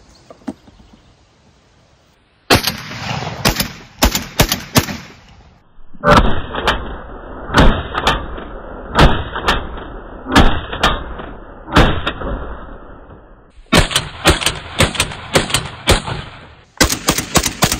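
Tokarev TBP 12-gauge semi-automatic bullpup shotgun fired in rapid strings, shot after shot about one or two a second, starting a couple of seconds in. It cycles each shell without a hitch, which the shooter calls flawless so far.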